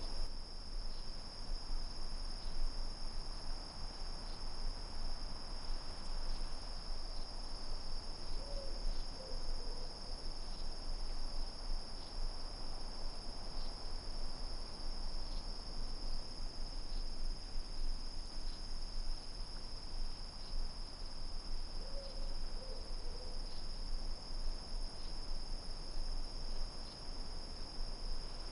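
Steady high-pitched chorus of night insects, unbroken throughout, over a low background rumble. A brief faint call sounds twice, about nine and twenty-two seconds in.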